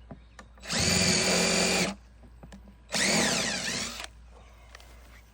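DeWalt power drill driving screws into wood: two motor bursts of about a second each, the second winding down in pitch as it ends.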